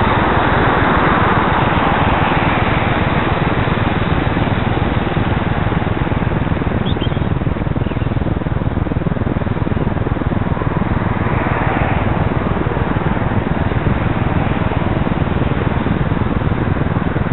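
Steady rushing noise of riding: wind buffeting the bike-mounted camera's microphone, mixed with traffic running on a wet road alongside. A louder swell fades over the first couple of seconds, and another rises and falls about ten to twelve seconds in, like vehicles passing close by.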